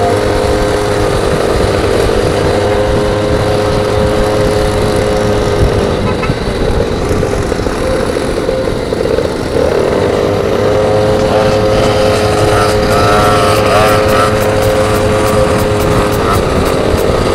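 Small goped scooter engine running at steady high revs while riding, over a constant rush of wind and road noise. The engine note wavers and blurs from about six seconds in, then settles back to a steady pitch around ten seconds.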